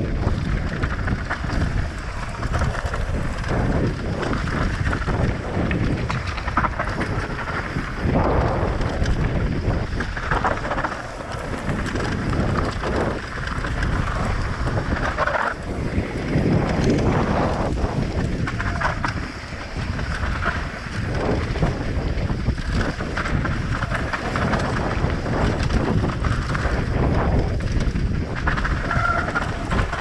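Wind buffeting the microphone on a mountain-bike ride, with frequent knocks and rattles throughout.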